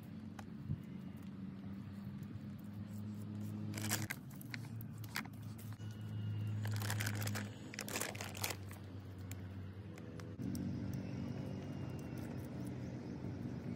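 Hands scraping and crumbling damp clay soil while shaping holes in an earth wall, with a cluster of sharper scrapes partway through. A low steady hum runs underneath.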